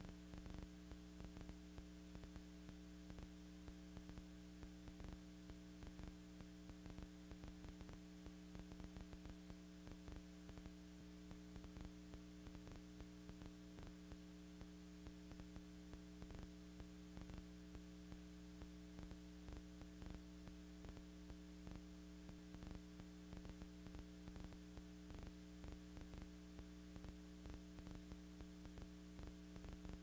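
Near silence: a faint steady hum with hiss and frequent small crackling clicks. This is the noise floor of an old film transfer that carries no recorded sound.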